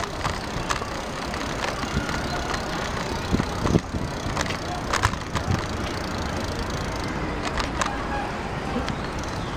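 Bicycle riding along a paved track: steady tyre-rolling and wind noise, with scattered clicks and rattles from the bike and a sharper knock about four seconds in.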